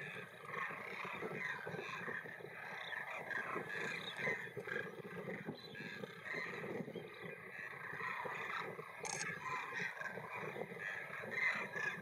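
A large flock of demoiselle cranes calling together: a dense, continuous chorus of many overlapping calls.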